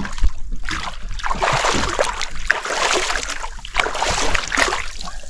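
Sea water splashing in irregular rushes as a large red fish, a Chinaman fish, is held by the tail and dunked and swished at the boat's side to revive it for release.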